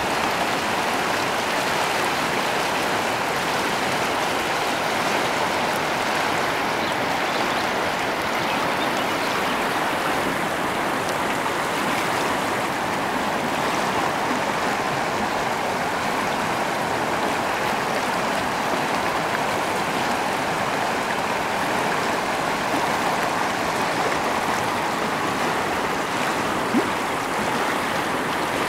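Fast-flowing shallow creek rushing over rocks, a steady, even rush of water.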